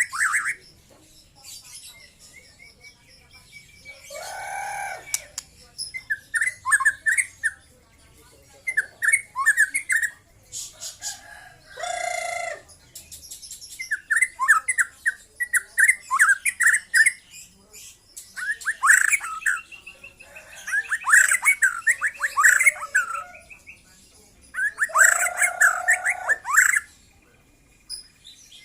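A young white-rumped shama singing in short bursts of quick, sharp whistled and chattering notes, a phrase every couple of seconds, with a few lower, harsher calls among them.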